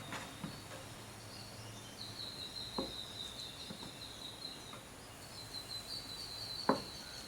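Knife slicing mozzarella cheese on a cutting board: two soft knocks as the blade meets the board, the second near the end louder. A faint, high, wavering trill runs behind in two stretches.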